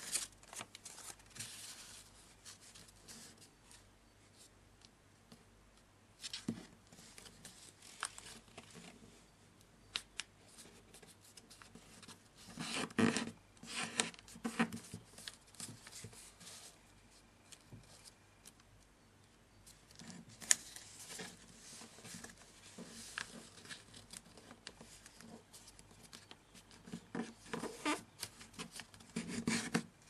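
A sheet of origami paper being folded and creased by hand: irregular crinkling and rustling as it is handled and pressed flat, with denser runs of it about halfway through and near the end.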